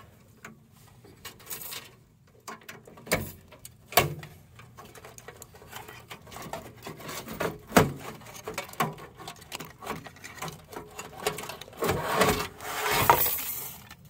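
Hands handling cables and parts inside a sheet-steel desktop computer case: scattered sharp clicks and knocks of metal and plastic between softer rustling, with a longer stretch of rustling and scraping near the end.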